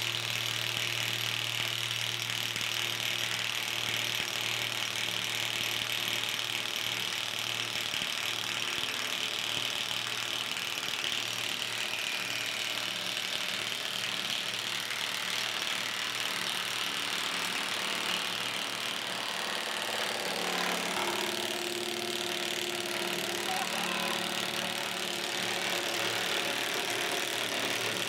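Milwaukee M18 FUEL 2867-20 cordless 1-inch impact wrench hammering steadily on a rusted, 40-year-old cutting-edge nut; its note shifts about twenty seconds in. The nut breaks loose, but the carriage bolt turns with it, so the gun loses its tight snap.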